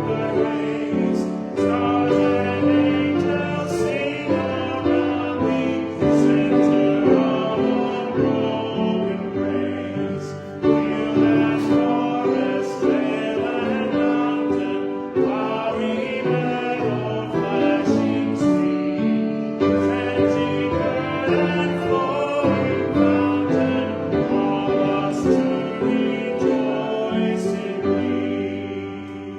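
Church music: voices singing over sustained instrumental chords that change every second or two.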